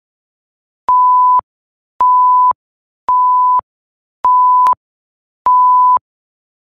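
Electronic countdown timer beeping five times, each beep one steady tone about half a second long, roughly one a second.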